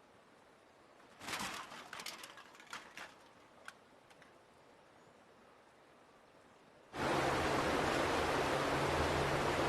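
A few sharp clicks and splashes, then about seven seconds in a sudden loud, steady rush of water.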